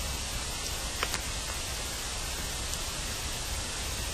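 Steady hiss from amplified ground-listening monitoring, with a low hum beneath and a couple of faint clicks about a second in. The uploaders present such sounds as signs of people moving in a tunnel underground.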